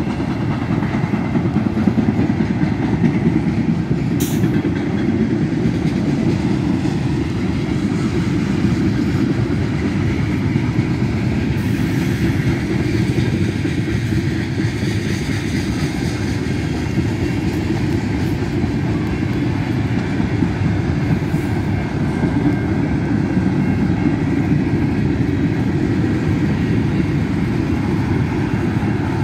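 Freight train of flatcars and tank cars rolling past at an even pace: a continuous low rumble of steel wheels on the rails, with a short high-pitched noise about four seconds in.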